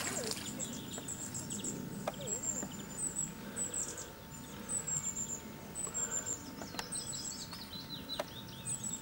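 Songbird chirping repeatedly, short high-pitched chirps about once a second, with a few other falling bird calls and occasional faint clicks behind.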